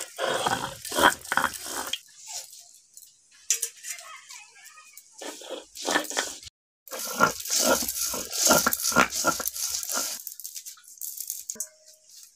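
Flat metal blade scraping wet rice paste across a grooved stone slab in quick, repeated rasping strokes, in bouts with a quieter gap a few seconds in.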